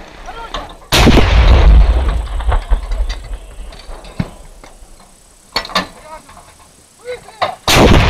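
A towed artillery howitzer firing twice: a very loud blast about a second in and another near the end, each dying away over about two seconds. A few sharp knocks fall in between.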